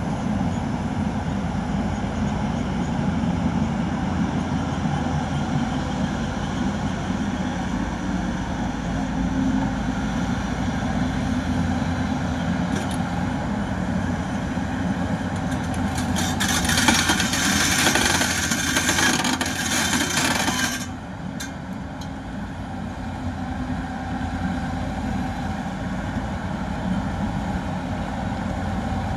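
Diesel engine of heavy construction machinery running steadily. A loud hiss comes in a little past halfway, lasts about five seconds and cuts off, and the engine sound is slightly quieter afterwards.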